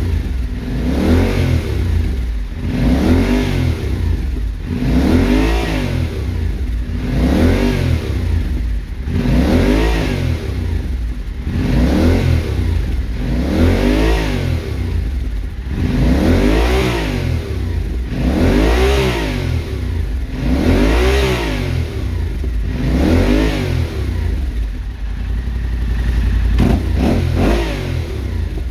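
Yamaha Ténéré 700's 689 cc parallel-twin engine breathing through an ENDY Volcano slip-on exhaust, revved in place about every two seconds, each rev rising and falling back to idle, with a few quicker short blips near the end.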